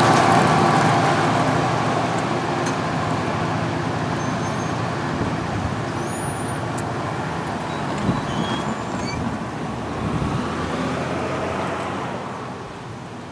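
Commuter train rumbling along the rails with a steady whine, the sound fading gradually as it moves away until it is faint near the end.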